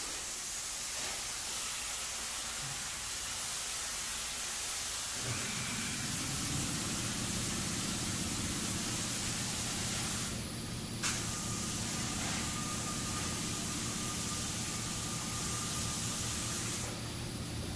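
Gravity-feed paint spray gun hissing as it sprays candy paint at low air pressure, with two short breaks in the hiss, about ten seconds in and near the end. A low hum comes in about five seconds in.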